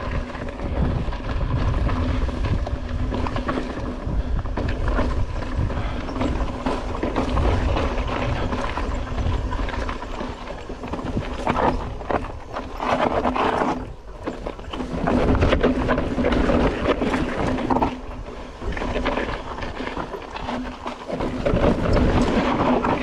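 Mountain bike descending a steep, rocky trail: tyres rumbling over rock with a run of knocks and rattles from the bike, and wind buffeting the camera microphone.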